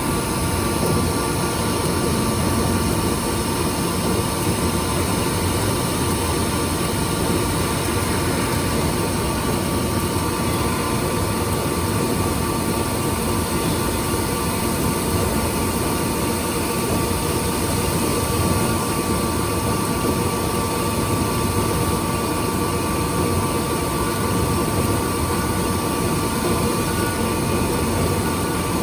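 Milling machine fine-milling an A2 steel plate: steady machine noise with a few steady tones, running evenly without change.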